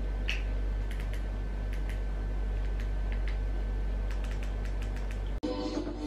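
A series of light, irregular clicks over a steady low hum. Near the end the sound cuts abruptly to music.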